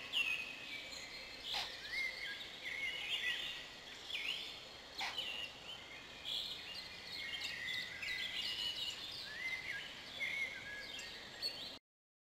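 Small songbirds singing in chorus: short chirps and slurred whistled phrases from several birds, with two sharp clicks, about a second and a half in and about five seconds in.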